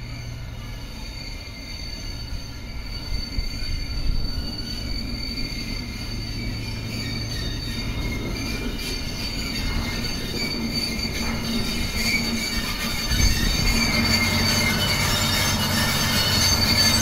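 A small switcher locomotive moves an EF81 electric locomotive through a rail yard. There is a low steady engine drone and high-pitched wheel squeal on the rails, growing louder as they approach, with a few clanks along the way.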